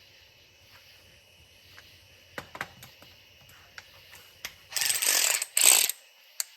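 A few light clicks, then a DeWalt 12-volt cordless ratchet runs in two short bursts, about five seconds in, spinning a bolt.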